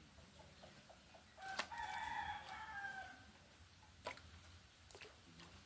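A rooster crows once, a call of about a second and a half that sags slightly at its end, starting about two seconds in. A sharp knock follows about four seconds in.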